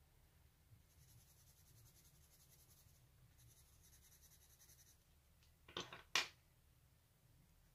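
Coloured pencil shading on drawing paper: faint, rapid short scratching strokes for a few seconds. Two brief louder knocks near the end.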